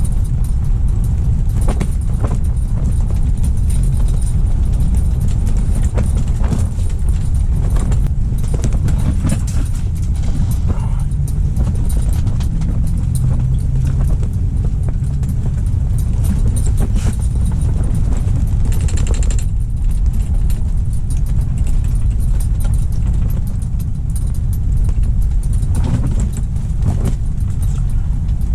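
Strong wind buffeting the microphone, a steady loud low rumble, with a few light clicks and taps of handling over it.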